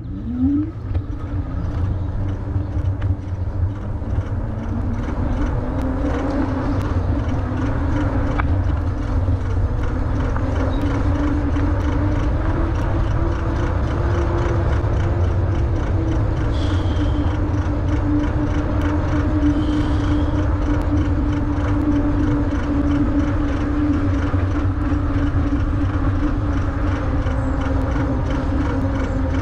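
WALLKE X3 Pro eBike riding on a paved trail. The electric motor whines up in pitch in the first second as the bike pulls away, then holds a steady whine at cruising speed. Heavy wind rumble on the microphone and tyre noise run underneath.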